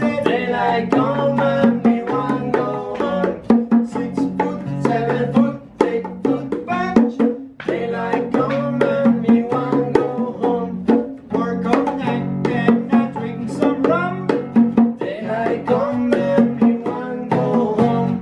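Classical guitar strummed and picked in a lively rhythm while a pair of bongos is played by hand.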